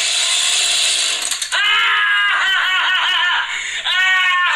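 Chainsaw engine with its chain taken off, revved in quick repeated bursts so its pitch rises and falls several times a second. A hissing noise comes before it, in the first second or so.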